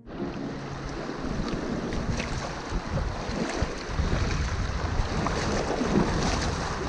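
Shallow mountain river rushing over stones, splashing around bare feet wading across it.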